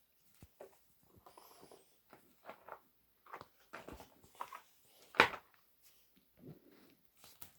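Silicone pop-it fidget toy being handled and pressed: irregular soft pops, clicks and rustles, with one much louder pop about five seconds in.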